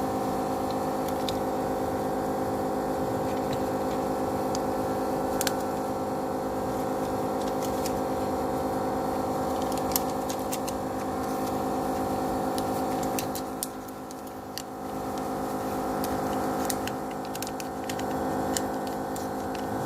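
Steady electrical hum from a phone-screen separator machine, with many overtones and a brief dip a little over halfway through. Scattered light clicks and ticks of small tools on the phone sound over it.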